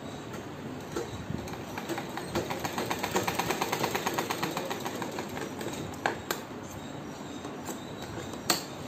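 Sewing machine stitching a seam, a quick, even clatter of stitches for a few seconds, then stopping. A few sharp separate clicks follow, with scissors snipping near the end.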